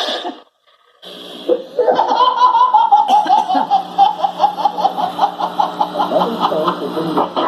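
A baby laughing in a long run of quick, rhythmic bursts, several a second, starting about two seconds in after a brief pause.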